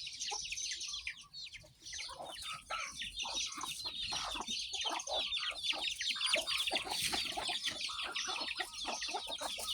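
A flock of chickens clucking and calling, with a dense chatter of many short, high, falling peeps.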